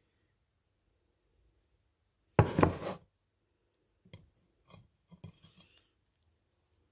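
A plate set down on a table with a brief clatter about two and a half seconds in, followed by a few light knocks and rubbing sounds as the toasted bread and sausage slices are handled.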